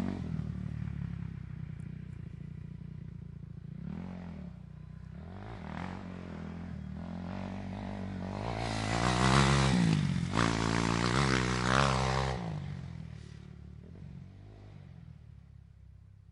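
Dirt bike engine revving up and down, its pitch rising and falling, growing loudest in the middle and then fading away near the end.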